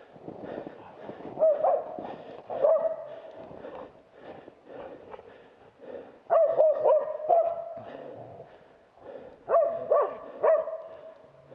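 Dog barking in short bouts of a few barks at a time, with quieter gaps between them.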